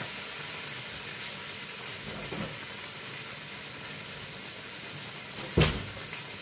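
Tofu frying in oil in a pan, a steady sizzle. One sharp knock about five and a half seconds in.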